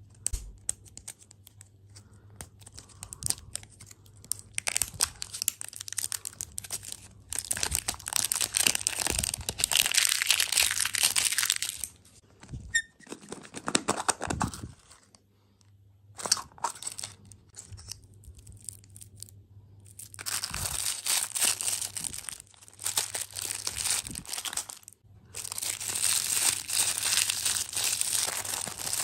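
Plastic dessert packaging crinkling and tearing as it is handled and unwrapped, in long crackly stretches broken by short pauses.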